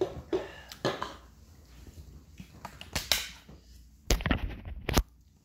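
A series of sharp knocks, taps and rustles, with a few in the first second, one about three seconds in, and a dense cluster between about four and five seconds in.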